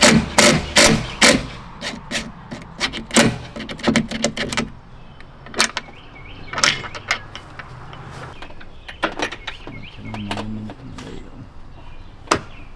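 Metal latch hardware being worked with hand tools: a run of sharp clicks about two to three a second for the first four or five seconds, then scattered lighter clicks and knocks.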